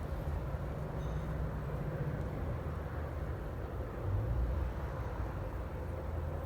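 Steady low vehicle rumble, swelling briefly about four seconds in.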